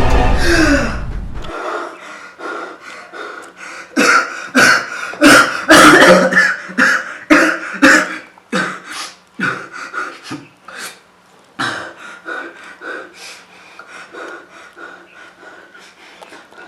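A person coughing in a long, irregular fit, hardest a few seconds in and tapering off into weaker coughs and breaths. Background music cuts off just before the coughing starts.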